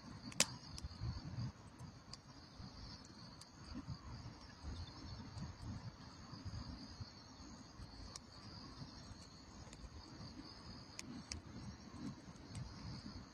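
Steady, high insect trilling, with a low rumbling noise underneath and a few sharp clicks, the loudest about half a second in.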